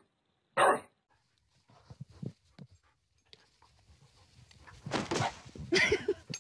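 A bulldog barks once, short and loud, about a second in. After that there are fainter scattered sounds, then a louder mixed noise near the end.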